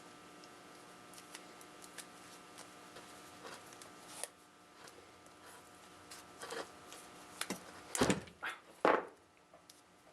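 Small clicks and rustles of hand tools and small parts being handled over a steady electrical hum, then a few louder knocks and clunks around eight to nine seconds in.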